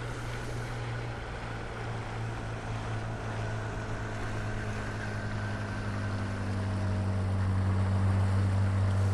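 Outboard motor of a small motorboat running steadily as the boat approaches, getting louder over the last few seconds.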